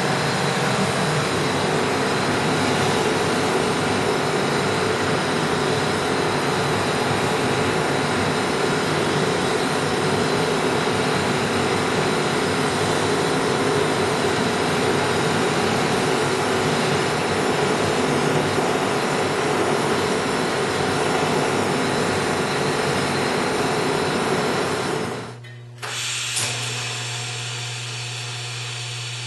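Oxy-fuel torch flame hissing steadily while it preheats cast iron before welding. About 25 seconds in, it cuts off suddenly and is followed by a click and the quieter, steady buzzing hum of a TIG welding arc.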